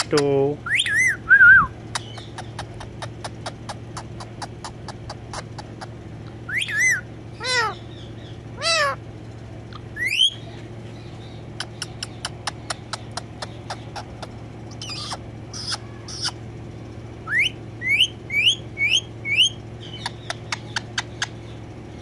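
Indian ringneck parakeet giving a few short pitched calls and, about two-thirds of the way in, a run of five quick rising whistles. Between the calls come many sharp clicks, several a second in places, over a steady low hum.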